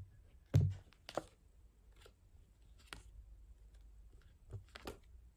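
Tarot cards being handled, drawn from the deck and laid down: a soft low thump about half a second in, then scattered light clicks and taps.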